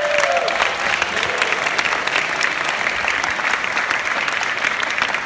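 Cinema audience applauding, many hands clapping steadily.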